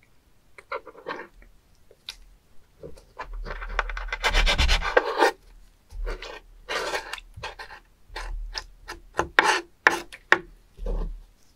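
A knife cutting and scraping a live spoon worm on a wet wooden cutting board: a run of scraping strokes of the blade along the wood with short clicks between them, the longest and loudest stroke about four to five seconds in.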